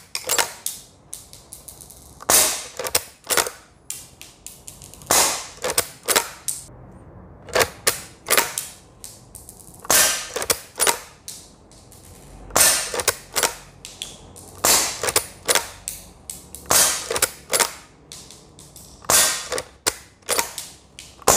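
Legends Cowboy CO2 lever-action BB rifle firing shot after shot, one shot every two to two and a half seconds. Each sharp crack is followed by the clack of the lever being worked, which throws out the spent shell and chambers the next.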